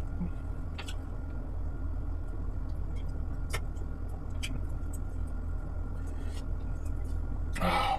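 Steady low background hum, with a few faint clicks and a short breathy sound near the end.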